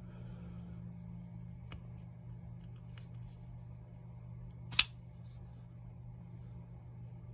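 Infinite Twin flipper folding knife flipped open: one sharp metallic snap near the end of the fifth second as the blade swings out and locks, after a couple of faint clicks.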